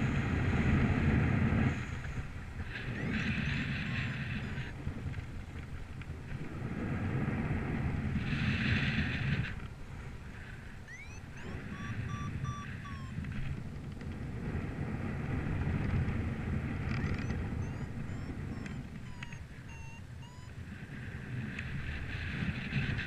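Gusty wind buffeting the microphone: a low rumble with a hiss that swells and dies away every few seconds. Faint chirps are scattered through it.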